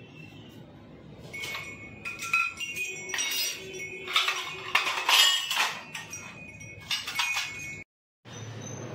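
A run of ringing clinks and chimes, several sharp strikes that each ring on, busiest in the middle, with the sound cutting out completely for a moment near the end.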